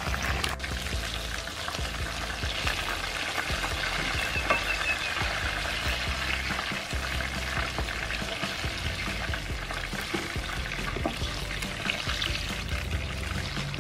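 Chicken wings sizzling and crackling in a pan of hot oil while a metal ladle stirs and scoops them out, with background music underneath.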